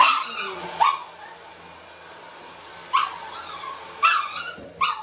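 Shih Tzu puppy yelping five times in short, sharp cries, frightened by a hair dryer it has never been dried with.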